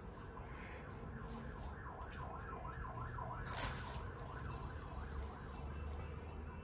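Faint emergency-vehicle siren in a fast rising-and-falling yelp, about four cycles a second, with one sharp click a little past the middle.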